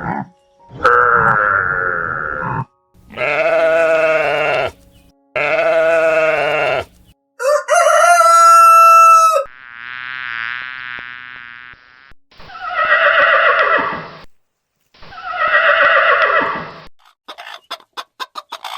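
A series of separate farm animal calls, one after another with short gaps: about eight pitched calls of one to two seconds each, then a run of quick clicks near the end.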